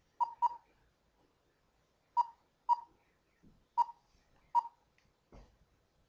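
Short electronic beeps, six of them in three pairs, each sharp and clear at one pitch, with two soft low thumps between them.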